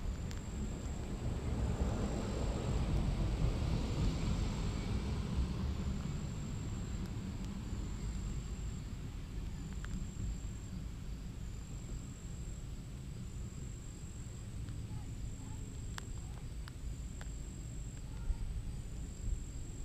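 Outdoor ambience under a steady low rumble, with a distant passing vehicle swelling over the first few seconds and then slowly fading. A thin, high trill comes and goes in repeated pulses throughout.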